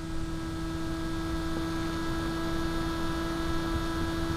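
An RC plane's electric motor and propeller running at a steady cruise, a constant hum with several overtones, over a light rush of wind, as heard from a camera mounted on the plane.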